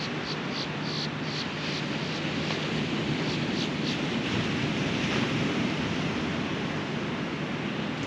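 Ocean surf breaking and washing up a sandy beach: a steady rushing hiss that swells a little about halfway through. A faint low hum sits under it for the first second or so.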